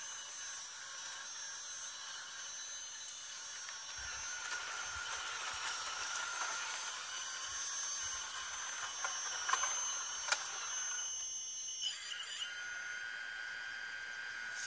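The hydraulic pump of a 1:14 scale radio-controlled Hitachi Zaxis 870 excavator giving a steady high-pitched whine over a hiss as the boom and arm move. A few sharp clicks come past the middle, and the pitch wobbles briefly about three quarters through.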